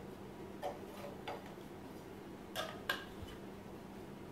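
Four faint, light clicks and taps as small plastic caps are handled and fitted onto the connectors of a glass dome-percolator module, two close together near the end.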